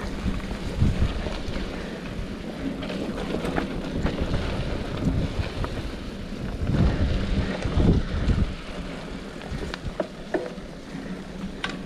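Wind buffeting the microphone over the rumble and rattle of a mountain bike rolling along a dirt trail, with a few sharp knocks near the end.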